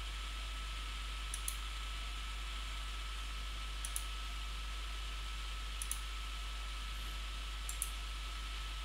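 Computer mouse button clicks, coming in close pairs four times, about every two seconds, over a steady hiss with a faint high whine.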